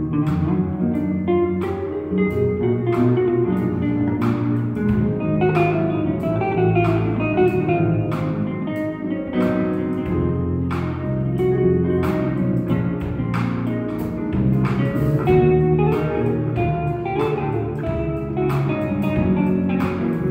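Live band playing an instrumental passage: plucked electric bass and chords over drum and cymbal hits keeping a steady beat of about one stroke a second.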